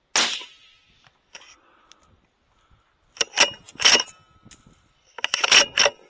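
Single rifle shot with a short ringing tail, then a series of sharp metallic clicks and clinks in two clusters as the bolt is worked to chamber the next round.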